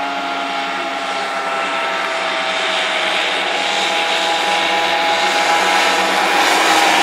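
Easykart 50 racing karts with small 50cc two-stroke engines, running at speed in a steady high buzz that drifts slowly down in pitch and grows steadily louder as the karts come nearer.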